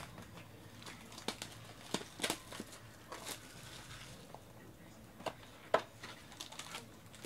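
Trading-card boxes and packaging handled by hand: scattered light taps, rubs and crinkles of cardboard and plastic, with a sharper knock about two-thirds through.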